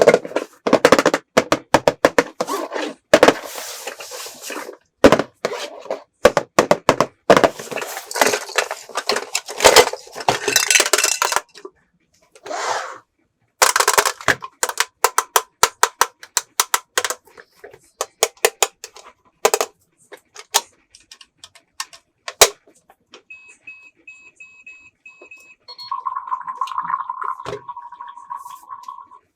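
Plastic toy pieces clattering, rustling and clicking as a toy house playset is handled. Later come a quick run of short high electronic beeps and then a steady electronic tone lasting about three seconds from the toy.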